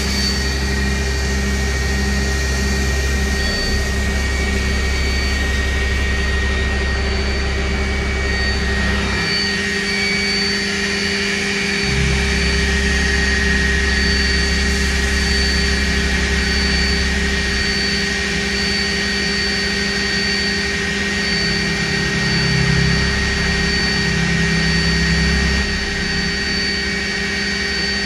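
Okuma MB-5000H horizontal machining center running: a steady high whine with a fainter pulsing tone above it, over a deep machine hum that cuts out for a few seconds about nine seconds in and then comes back.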